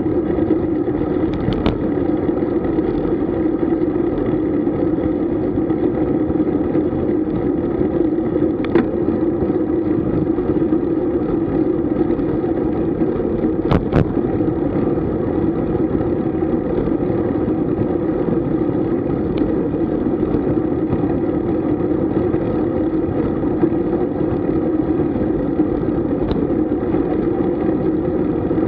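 Steady wind and road noise on the microphone of a camera carried along on a moving road bicycle, with a few sharp knocks, the loudest about halfway through.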